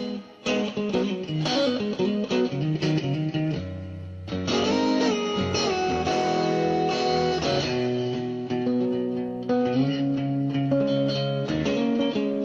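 Background music led by electric guitar: quick plucked notes at first, then longer held chords from about four seconds in.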